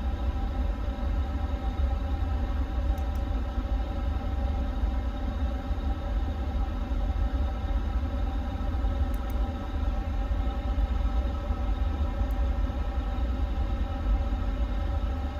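Steady low rumble with a steady, many-toned hum: the background noise of an Airbus A350 cockpit with its systems powered up. A few faint clicks come through, about three in all.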